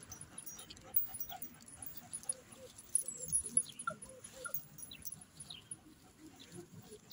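Large Caucasian–German Shepherd mix dog panting in a quick, even rhythm, with a few brief thumps about three seconds in.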